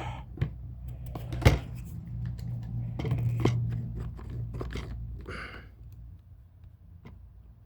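Small clicks, knocks and scraping of hand work on a wooden gun stock, with one sharp knock about a second and a half in, over a low steady hum.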